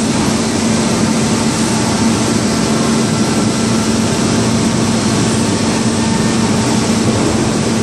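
Hot-rolling mill at work on a red-hot steel cylinder: a loud, steady industrial din with a constant low hum.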